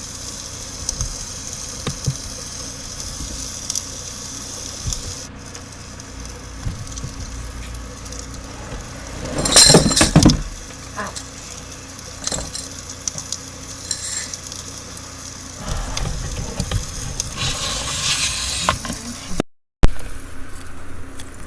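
Campfire burning, a steady hiss with scattered sharp crackles and pops. About ten seconds in there is a louder burst of crackling noise, and the sound cuts out for a split second near the end.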